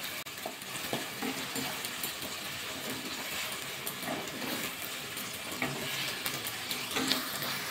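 Sliced onions sizzling steadily in hot mustard oil in a non-stick kadai, stirred with a wooden spatula that gives faint scrapes and taps against the pan.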